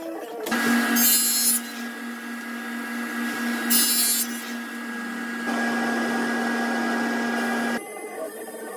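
Table saw running, with two short bursts of high hiss as the blade cuts through a board, about a second in and again about three and a half seconds in. The steady motor tone cuts off abruptly near the end.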